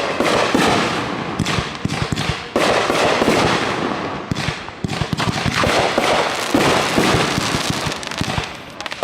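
Fireworks grand finale: a dense, unbroken barrage of bangs and crackling as many shells burst in quick succession.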